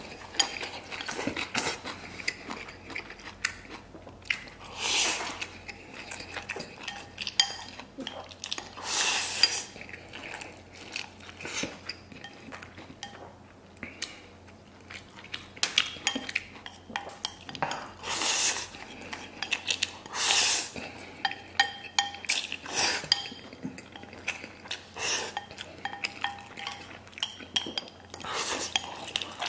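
Noodles slurped loudly from a ceramic bowl, a slurp every few seconds, with wooden chopsticks clicking against the bowl in between.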